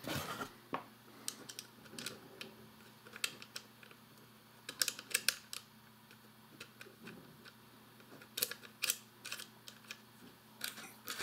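Light clicks and taps of hands handling a 3D-printed plastic base and small metal nuts and screws on a wooden table, coming in scattered clusters.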